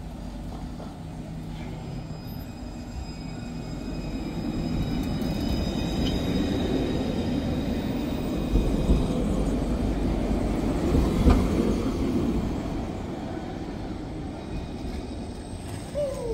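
Light-rail tram rolling along the platform past close by: its running rumble grows louder, peaks about halfway through with a thin high whine, then fades as it moves off.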